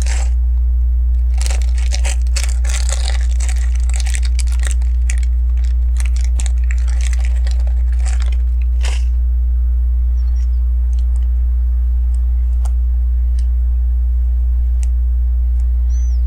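Small plastic LEGO pieces being rummaged through and handled: a dense clatter of clicks and rustling for about nine seconds, then only a few scattered clicks. A steady low electrical hum runs underneath.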